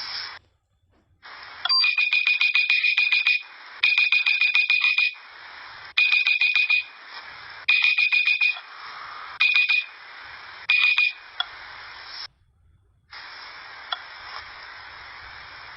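Rapid electronic beeping like an alarm, about ten short high beeps a second, coming in bursts of one to two seconds. A steady hiss fills the gaps between bursts. The sound cuts out to silence twice, briefly.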